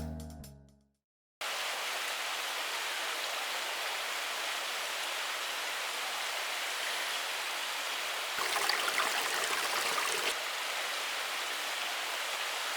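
Background music fades out in the first second; after a moment of silence, a steady hiss of water begins, swelling a little for about two seconds about two-thirds of the way through.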